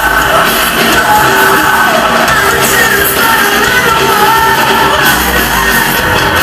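Live rock band playing loud, with guitars, bass and drums under a lead vocal that is sung and yelled.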